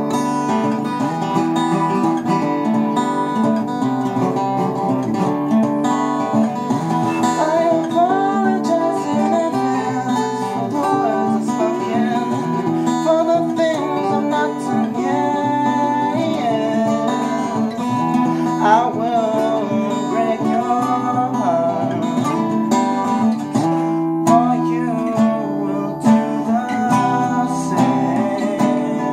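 Two acoustic guitars playing together, one strumming chords and the other picking lead lines, with a man singing over them.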